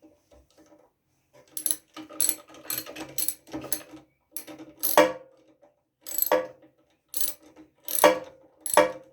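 Ratchet wrench being worked back and forth to run a bolt into a small tiller engine, giving a series of short clicking strokes about one every half second to a second.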